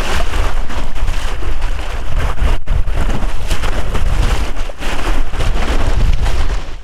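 Creek water splashing and churning right against the microphone as a person wades and scrambles through it, with a heavy low rumble underneath.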